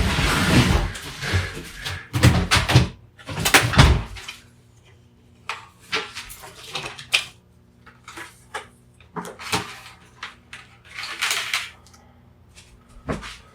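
Clattering and rustling of cut power-cord pieces and plastic being handled and cleared away. The sound is a dense, loud run of noise for about the first four seconds, then scattered clicks and knocks.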